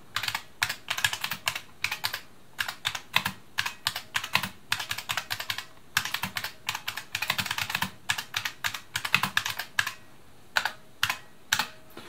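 Typing on an IBM Model F buckling-spring keyboard: a fast, clattery run of loud key strokes with a few brief pauses, stopping just before the end.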